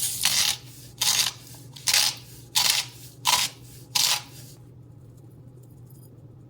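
Salt being added to the ribs from its container in six quick, evenly spaced gritty rasps, then stopping.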